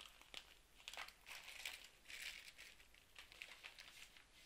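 Faint crinkling and rustling of a plastic poly mailer bag being torn open and pulled back from a boxed cube, in a string of short, soft rustles.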